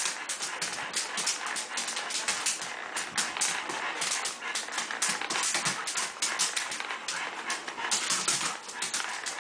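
A dog's claws clicking and scrabbling rapidly on a hard kitchen floor as it spins and lunges after a light reflection, with some whimpering.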